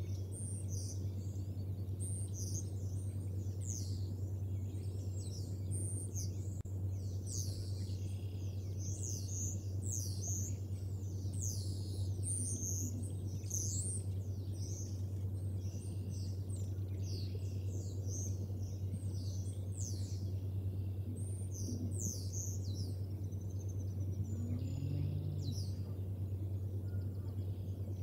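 Bald eaglet chicks chirping: a run of short, high-pitched, down-slurred peeps repeated throughout, over a steady low hum.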